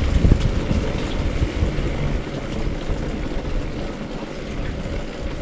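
Wind buffeting the microphone on a moving motorcycle, with the Bajaj Avenger 160 Street's single-cylinder engine running steadily beneath it.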